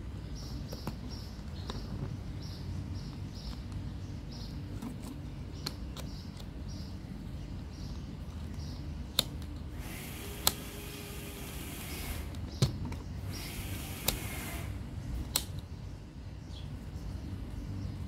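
Sharp clicks and taps from hands handling the plastic housing and lever of a washing-machine door-lock switch, about five over the second half, with two short bursts of scratchy rubbing among them. A steady low background rumble runs under it all.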